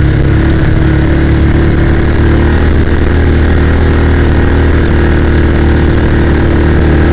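Motorcycle engine running at a steady cruise on the move, its pitch holding nearly level, with road and wind noise.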